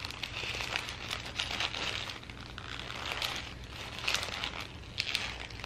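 Paper burger wrapper crinkling and rustling as it is folded back from a cheeseburger held in both hands, with irregular small crackles and a few sharper ones about four and five seconds in.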